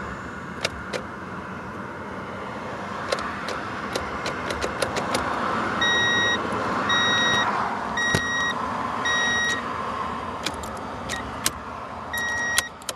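A 1990 Honda Accord running after a fresh battery brought it back to life, a steady running sound with scattered clicks. Partway through, a warning chime beeps about once a second four times, then once more near the end.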